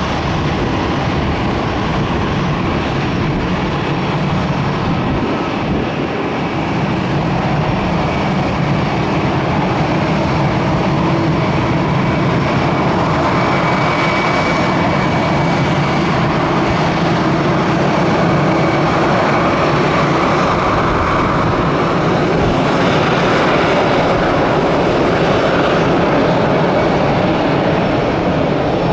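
Airbus A330-300 twin-jet airliner coming in to land, its engines making a steady, loud rush with a faint whine that grows slightly louder.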